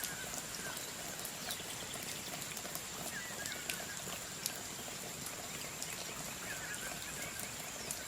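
Outdoor ambience: an even hiss with scattered light ticks, a steady high-pitched whine, and a small bird chirping briefly three times, about three seconds apart.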